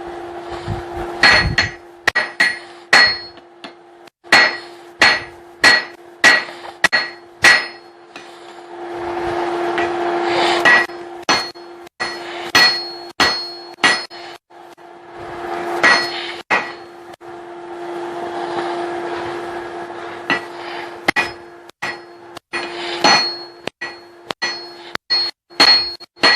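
Hand hammer striking hot steel on an anvil while forging a hammer eye punch: runs of ringing blows, about one and a half to two a second, with short pauses between the runs. A steady hum and, between some runs, a rushing noise lie underneath.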